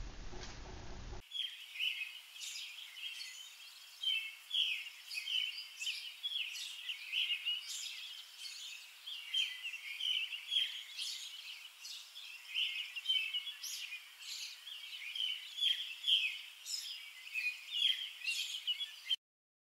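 Birds chirping and singing, many quick overlapping calls in a steady chorus that starts suddenly about a second in and cuts off abruptly near the end.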